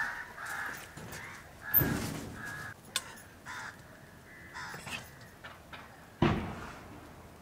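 Crows cawing repeatedly in short calls, with two sudden louder clatters, one about two seconds in and one near the end.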